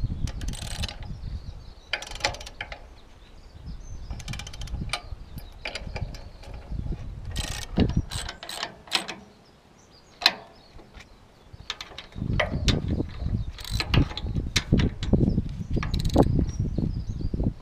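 Irregular metallic clicks and clanks of hand tools working on machinery, with ratchet-like clicking and occasional sharper knocks, and low rumbling near the start and again in the last few seconds.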